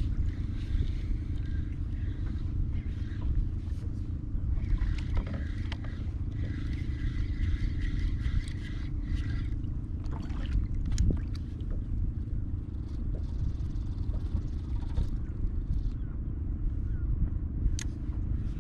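Steady low rumble of wind on the microphone out on open water, with small knocks and clicks from the kayak and tackle. A faint steady whine runs for about five seconds a few seconds in.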